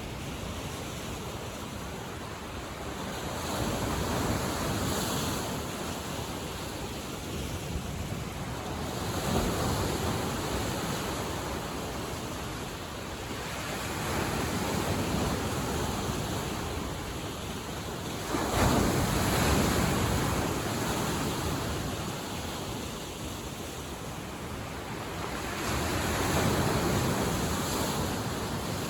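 Lake waves breaking and washing on the shore, surging and fading about every five seconds, with one sharper, louder break a little past the middle; wind adds a steady rush.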